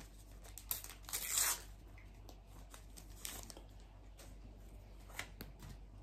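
A Panini Adrenalyn XL trading-card packet torn open by hand: a short ripping of the wrapper about a second in, followed by faint rustles and clicks as the cards are handled.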